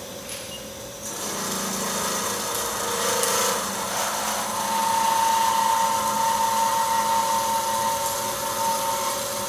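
Cosen M5 CNC automatic band saw running with a steady hum. About a second in it gets louder and hissier, and a few seconds later a steady higher whine joins in and holds.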